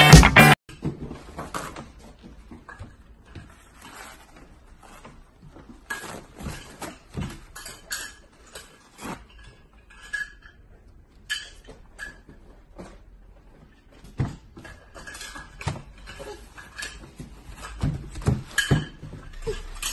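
A toddler playing and handling things: paper rustling and light knocks and taps, with short high squeaks and vocal sounds from the child.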